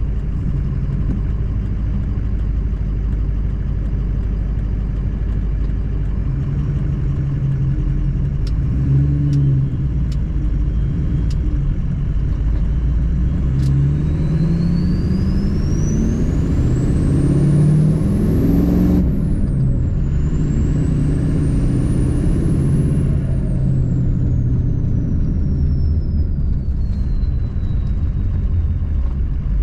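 Diesel truck engine running on the road, then pulling harder with its pitch climbing and a thin high whine rising alongside. The pitch drops sharply about two-thirds of the way through, as at a gear change, climbs again, then eases off.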